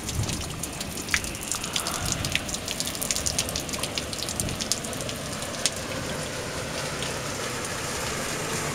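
Water from a water truck's tank plumbing spattering and dripping steadily, with many small sharp splashes.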